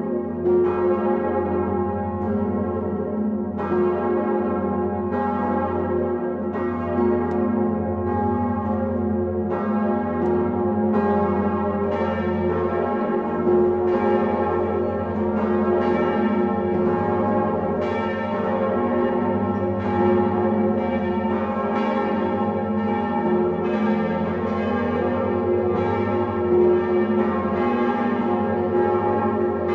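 Notre-Dame de Paris cathedral's swinging bronze bells ringing together in a full peal (plenum), heard close up in the belfry: overlapping clangs keep striking at uneven intervals over a deep, continuous hum from the great bourdon.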